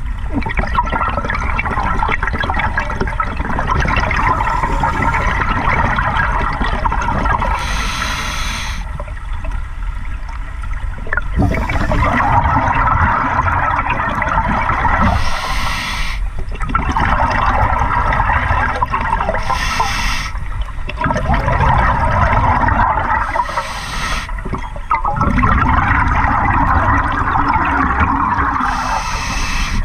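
Scuba diver breathing through a regulator underwater: a short hiss of inhalation five times, each followed by a long burst of exhaled bubbles.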